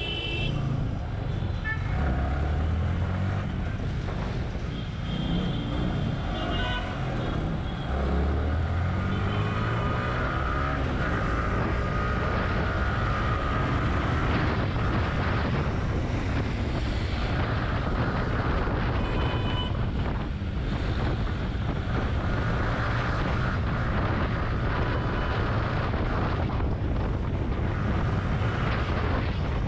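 Motorcycle engine running as it is ridden through city traffic, revving up and rising in pitch about two seconds in and again from about eight seconds in, then holding a steady drone. Short high-pitched horn toots from the surrounding traffic come and go.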